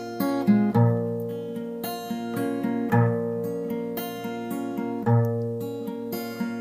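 Instrumental background music, the outro of a Chinese pop song: acoustic guitar chords struck every second or two and left to ring.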